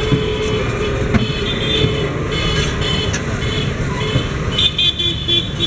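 Steady traffic noise from a busy street, with vehicle engines running.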